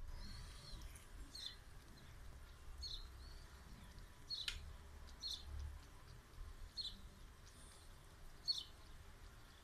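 A small bird chirping outside: short, high chirps that drop in pitch, repeated irregularly about once a second over a faint low rumble.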